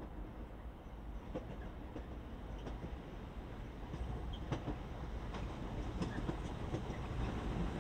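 Electric passenger train approaching down the line, its rail noise growing steadily louder, with scattered sharp clicks of the wheels over the track.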